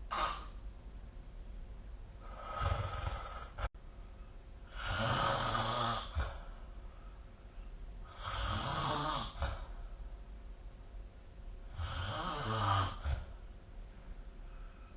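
A sleeping person snoring in a steady rhythm: four long rasping snores about three and a half seconds apart, with a shorter one right at the start.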